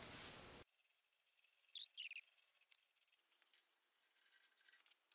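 Near silence, broken by two brief faint high scratching sounds about two seconds in and a few faint ticks near the end: small hand-handling noise on the lathe tailstock.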